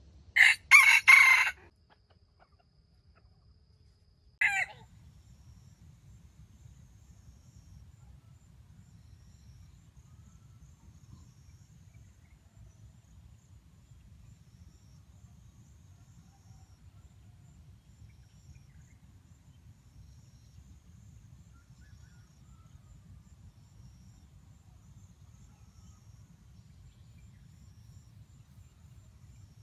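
A junglefowl rooster gives a short, stuttering crow broken into three bursts, then one brief call about four seconds later. A faint low rumble follows.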